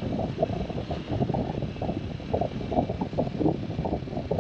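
Motorcycle on the move, heard from the rider: wind buffeting the microphone in uneven gusts over a steady engine and road noise.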